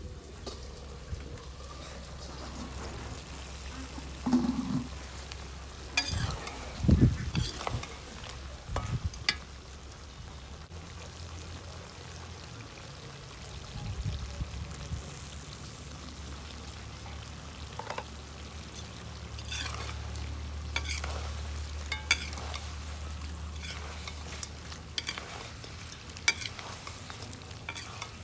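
Chicken pieces frying and sizzling in a black iron wok over a wood fire, stirred with a metal spatula that clicks and scrapes against the pan several times in the second half. A few heavy low thumps come between about four and nine seconds in.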